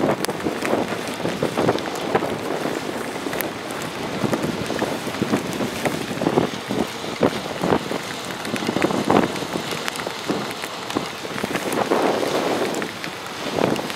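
Wind gusting across the microphone with rain pattering, in uneven surges and many small sharp drop hits.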